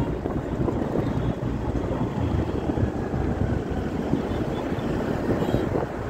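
Wind buffeting the microphone over the steady low noise of a moving vehicle on the road.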